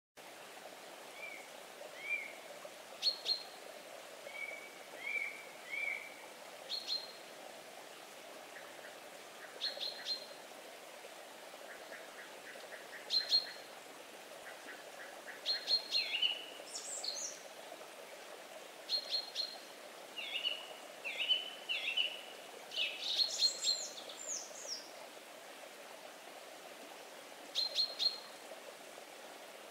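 Several birds chirping and calling at intervals over a steady wash of flowing water.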